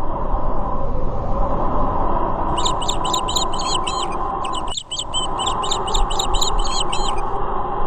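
Spooky sound-effect ambience: a steady, dark, noisy rumble, joined a couple of seconds in by a run of quick high-pitched chirps, about three or four a second, with a brief cut near the middle.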